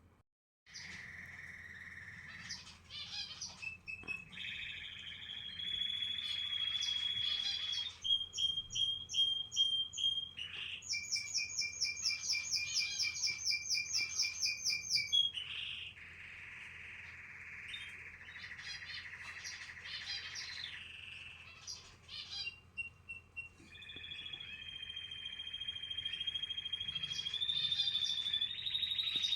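Canary vocalising: long held buzzy notes alternating with fast rattling trills, with a run of rapid high trills about 11 to 15 seconds in and held notes building again near the end.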